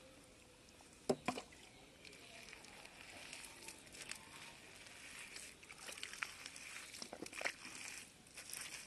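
Bare hands digging and squelching through wet mud and shallow water, with two sharp wet slaps about a second in and a run of small crackling squelches after.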